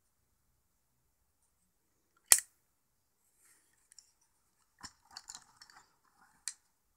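Butterfly knife being handled: one sharp metallic click, then a stretch of soft rustling with small clicks, and another sharp click near the end.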